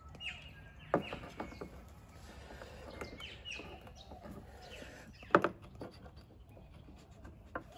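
Birds calling in the background, short gliding chirps. A few sharp clicks and knocks cut through, the loudest about five seconds in.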